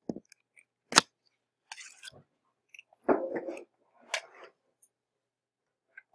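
A sharp click about a second in, then scattered short rustles and knocks, the fullest a brief burst about three seconds in, and a second click soon after.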